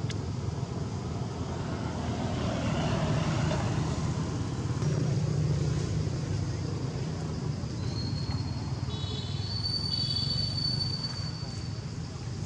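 Steady low rumble of vehicle traffic that swells about two seconds in, with a thin, high whistling tone from about eight to eleven seconds in.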